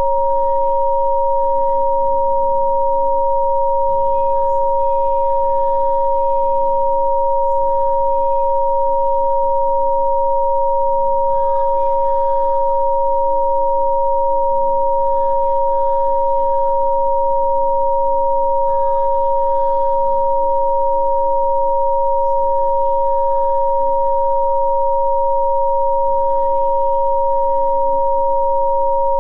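Two steady electronic sine tones of Rife frequency therapy sounding together at two fixed pitches, a higher and a lower, over a much fainter bed of soft ambient chords that change every few seconds.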